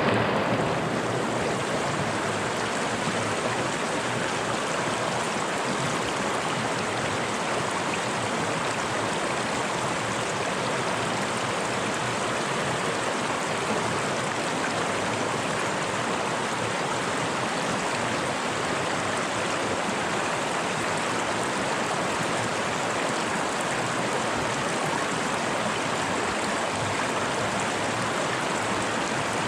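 Fast-flowing mountain river rushing over rocks, a steady full rush of water that keeps an even level throughout.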